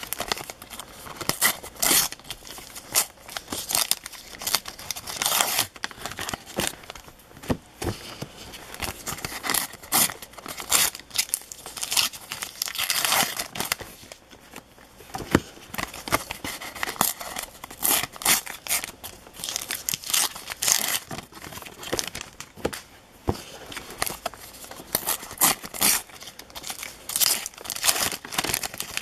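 Paper wrappers of Panini sticker packs being torn open and crumpled by hand: irregular tearing and crinkling, over and over.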